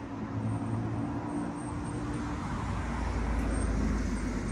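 Road traffic: a motor vehicle's engine hum on the street, growing louder toward the end as it comes closer.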